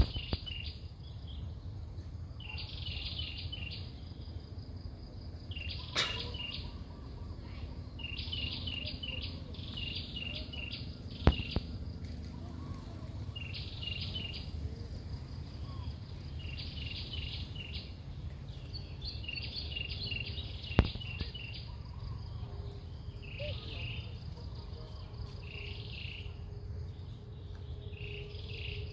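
Outdoor ambience: repeated bursts of high chirping every few seconds over a steady low rumble. A few sharp clicks stand out, the loudest a little over a third of the way in and again about two-thirds through.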